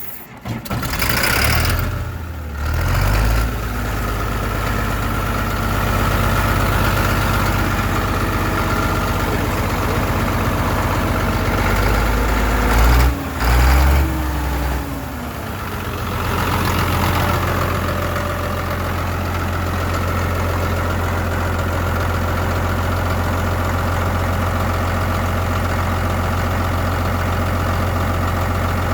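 Caterpillar D5 bulldozer's diesel engine just after catching on a hard start: it runs unevenly for the first few seconds, revs up and back down about halfway through, then settles into a steady idle.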